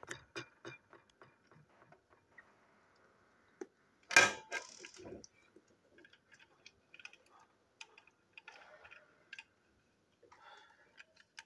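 Light clicks and knocks of a plastic toy train engine being handled, with one louder knock about four seconds in.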